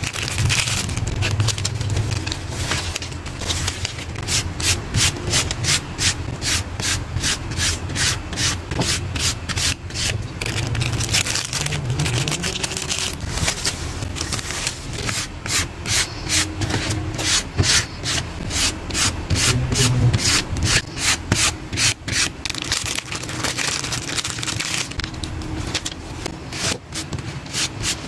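Rapid back-and-forth rubbing strokes, about three a second, with a couple of short lulls.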